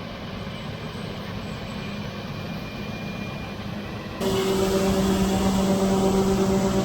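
Combine engine running steadily with a low drone; about four seconds in it becomes abruptly louder, with a strong steady hum.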